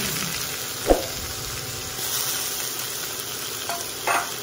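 Chayote squash strips, onion and scrambled egg sizzling in a wok while a spatula stirs them, with a sharp knock about a second in and a smaller one near the end.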